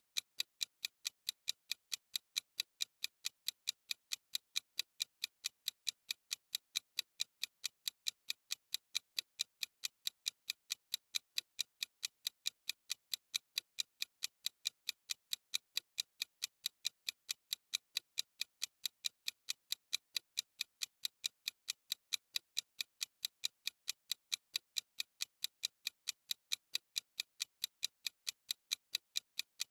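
Countdown timer's clock-ticking sound effect: sharp, bright ticks repeating evenly several times a second without a break.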